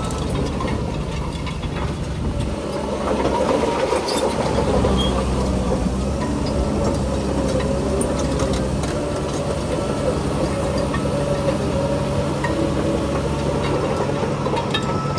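Diesel engine of a Shantui crawler bulldozer running steadily under load, with faint clanking from its tracks.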